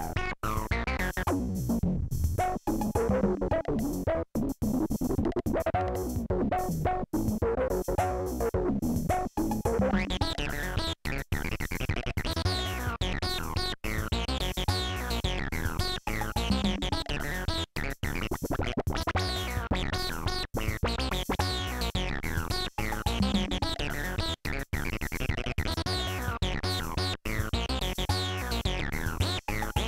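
Polivoks analogue synthesizer playing a repeating pattern of notes, its tone sweeping up and down as the panel knobs are turned. The instrument has just been repaired and is being tried out.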